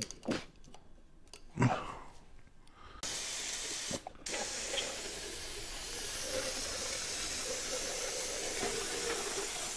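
A couple of knocks, then an aerosol spray can hissing in one long continuous spray from about three seconds in, with a brief break just after it starts, as cleaner is sprayed onto a bare engine block.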